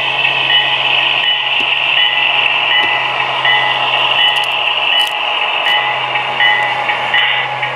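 Model Baltimore and Ohio F-unit diesel locomotive running slowly, its onboard sound system playing a steady diesel engine rumble with a bell ringing about one and a half times a second.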